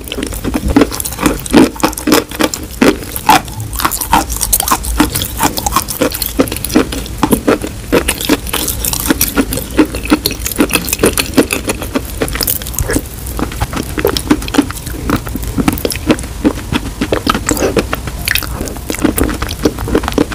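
Close-miked chewing of wet chalk paste: a steady stream of quick, sticky mouth clicks and crackles.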